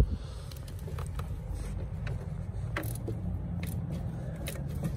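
Scattered light metal clicks and taps of a hand tool working a 10 mm bracket bolt on the engine, over a steady low rumble.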